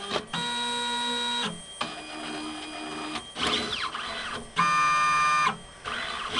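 Stepper motors of an automated pipetting robot whining as the arm and syringe move: three runs of steady whine at different pitches, each about a second long, with a quick up-and-down sweep in pitch about three and a half seconds in.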